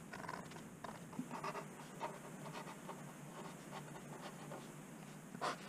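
Felt-tip marker writing on a cardboard box lid: a run of short scratchy strokes, busiest in the first two seconds, with a louder scratch near the end.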